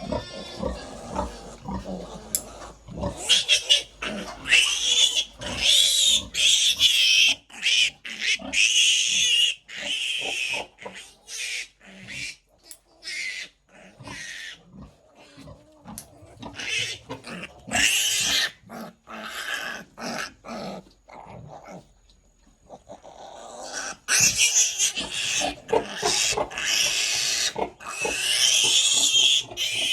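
Newborn piglet squealing loudly and repeatedly in bouts of high-pitched distress calls, with a short lull about two-thirds of the way through. These are the protest squeals of a piglet being held with its mouth forced open for needle-teeth clipping.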